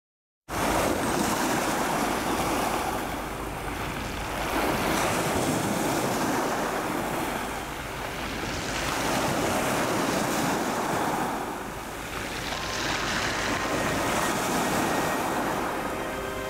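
Waves breaking and washing over a shingle beach of rounded pebbles, the surf swelling and easing about every four seconds.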